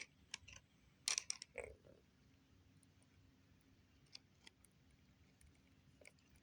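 A few faint, sharp clicks and creaks of a small screw and plastic RC car parts being worked by hand, bunched about a second in, then near silence with a couple of light ticks.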